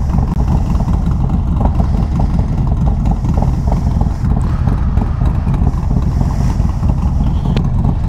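Harley-Davidson V-twin motorcycle engine running, loud and steady.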